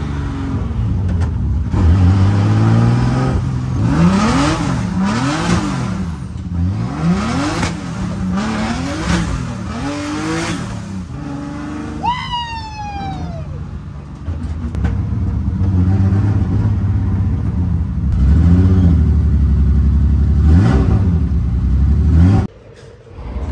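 BMW E36 drift car's engine heard from inside the stripped cabin while driving, the revs rising and falling about once a second for several seconds, then running steadily loud with another pull. A brief falling whistle comes about halfway through, and the engine sound cuts off abruptly near the end.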